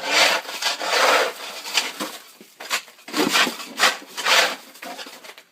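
Shovel scraping and chipping at hard-packed, icy snow in a series of short, rasping strokes.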